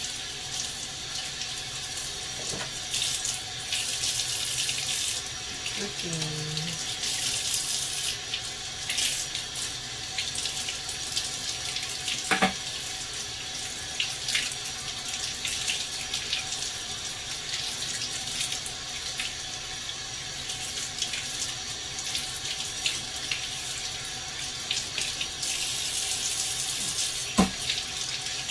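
Kitchen tap running steadily into a sink, the stream splashing over a fish being rubbed clean by hand. Two sharp knocks, one near the middle and one near the end.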